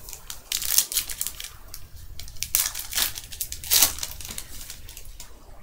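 Foil wrapper of a 2012 Panini Prestige football card pack crinkling and tearing as it is opened by hand, in a run of sharp, irregular crackles.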